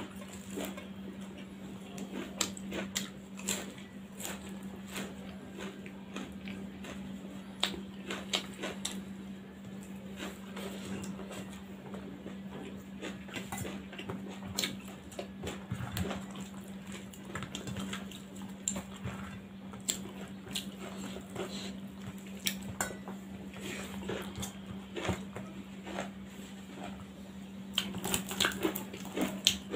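Fingers mixing and scooping rice against a stainless steel plate: scattered small clicks and scrapes on the metal, coming thicker near the end, over a steady low hum.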